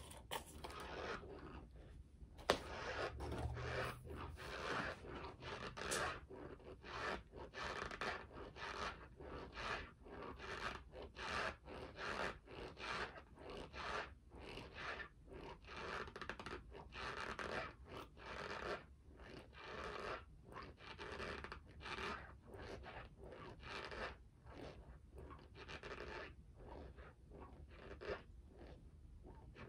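A mouthful of dry cornstarch powder being chewed close to the microphone, with about two chews a second.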